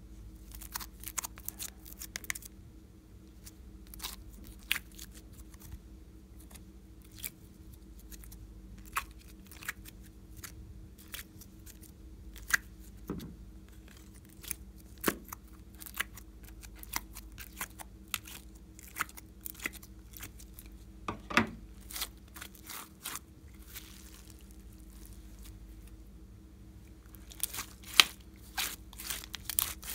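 Pink slime being pulled by fingers out of a plastic cube-shaped mold and stretched by hand: scattered sharp sticky clicks, pops and light taps on plastic, with a denser run of pops near the end as the slime is stretched.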